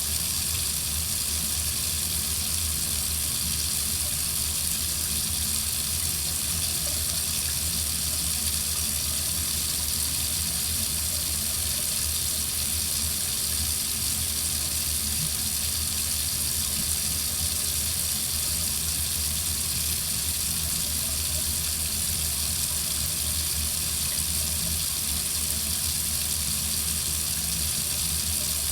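Water running steadily from a faucet into a sink, an even hiss with a low rumble underneath.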